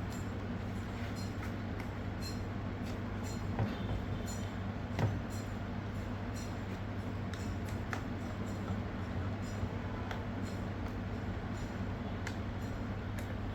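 Small precision screwdriver working tiny case screws: scattered light clicks and clinks of metal, two a little louder a few seconds in, over a steady low hum.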